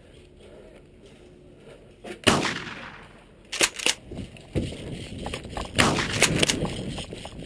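Airsoft guns firing. About two seconds in comes a loud sharp shot with a ringing tail, then two quick shots, then a run of several more shots a little later.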